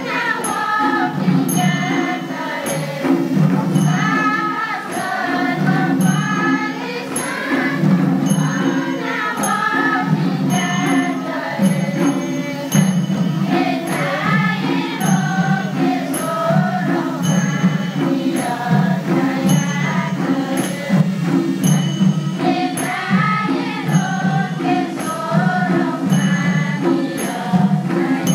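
A large choir of women singing a Newar devotional song in unison over many barrel drums beating a steady rhythm, with bright metallic strikes about once a second.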